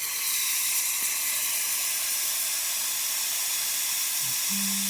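Breville Oracle espresso machine's steam wand venting steam with a steady, loud hiss that comes on at the very start.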